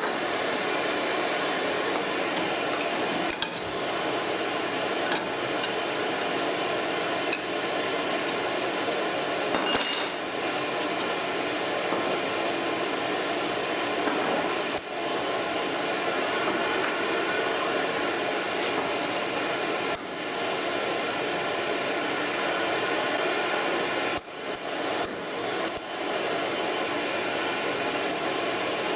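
AXYZ CNC router machinery running steadily, a constant hum with several held tones, broken by a few brief clicks and short drops in level.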